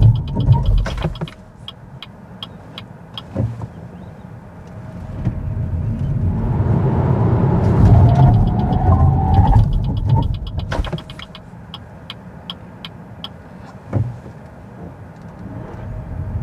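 Cabin sound of a BYD Dolphin electric car on acceleration runs: tyre and road rumble swell as it speeds up, with a faint rising electric-motor whine. Between runs the sound drops to a low hum with a series of light, regular clicks, then builds again near the end.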